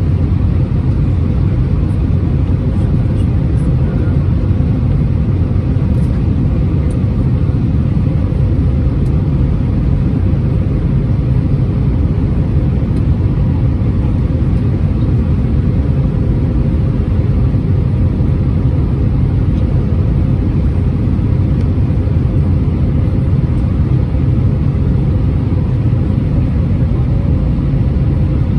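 Airbus A320-231 cabin noise: a loud, steady, unchanging rumble of engines and airflow heard from inside the cabin.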